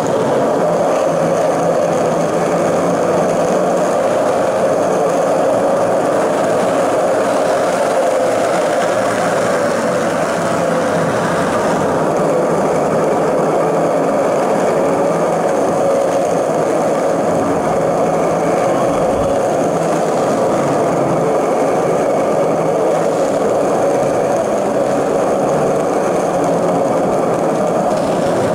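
Skateboard wheels rolling steadily over smooth concrete on a single push, a continuous even rolling noise with no breaks. The board is running on worn-in, dirty bearings.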